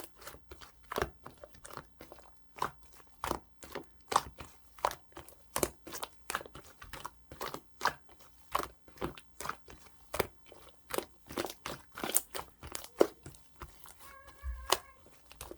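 Pink slime with a clay layer being squished and pressed by hand, giving sharp clicking and popping crackles, about two or three a second.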